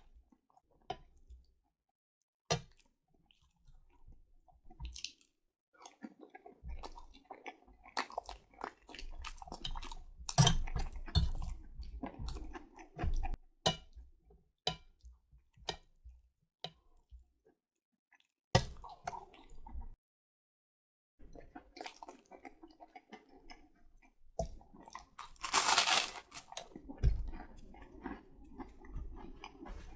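Close-up chewing and wet mouth sounds of eating spaghetti with meatballs in red sauce: irregular smacks and clicks with short pauses. Near the end there is a louder hissing burst lasting about a second and a half.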